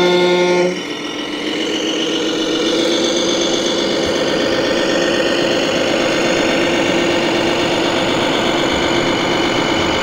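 A truck horn sounds for about a second at the start, then a steady engine drone runs on, both from a radio-controlled MAN TGX model semi-truck.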